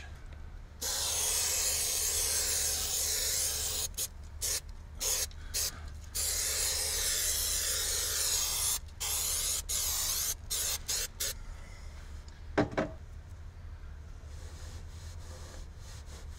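Aerosol can of 3M General Trim Adhesive spraying in hissing bursts onto a lifted section of carpet-style headliner to re-glue it: first one spray of about three seconds, then a run of short squirts, then two longer sprays. The spraying stops about eleven seconds in, and a brief pitched squeak follows shortly after.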